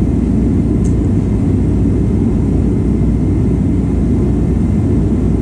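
Loud space heater running steadily, a constant low rushing noise.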